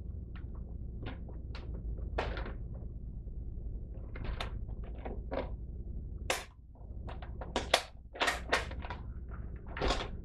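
Irregular plastic clicks and clunks from handling an Adventure Force Tactical Strike Titanium toy foam-ball blaster with a Nerf Rival magazine, some knocks sharper than others, over a low steady hum.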